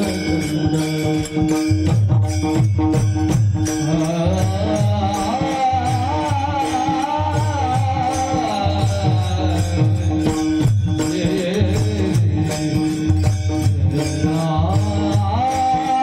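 Marathi devotional kirtan music: a man sings a wavering, ornamented melody over a steady held drone. A drum plays low, regular strokes, and hand cymbals strike in an even rhythm.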